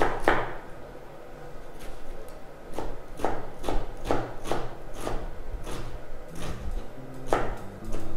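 Kitchen knife dicing onion on a plastic cutting board: a steady run of sharp knocks, about two a second.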